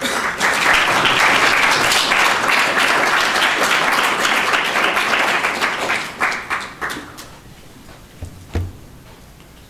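Audience applauding for about six seconds, then dying away. A few isolated knocks follow, one louder than the rest.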